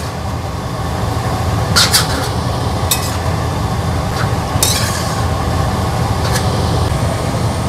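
Metal spatula scraping and clinking against a steel wok while stir-frying rice vermicelli with cabbage: a handful of short, sharp scrapes at uneven intervals over a steady low rumble.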